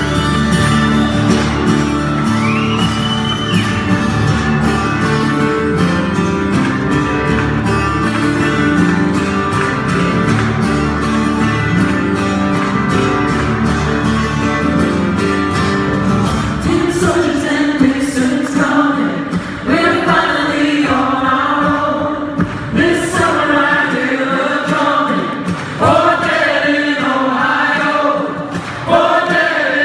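Acoustic folk-rock band playing live in a hall: hard-strummed acoustic guitars and keyboard fill the first half. About seventeen seconds in the strumming drops back, and several voices sing together in harmony, phrase by phrase.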